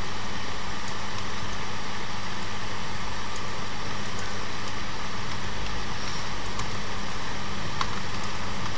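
Steady background noise with a low hum, and a few faint clicks.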